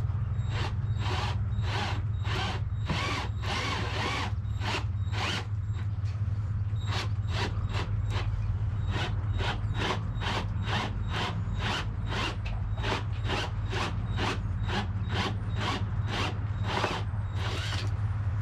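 Power drill with a 3/4-inch bit boring the centre hole through the thick plastic of a motorcycle tour pack, chattering in a rhythmic click about two to three times a second over a steady low hum.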